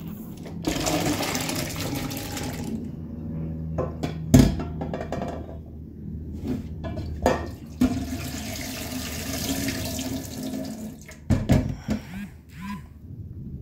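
Bean cooking water poured out of a pot through a plastic strainer into a stainless-steel sink, splashing in two long pours. Between the pours come a few sharp knocks, the loudest about four seconds in.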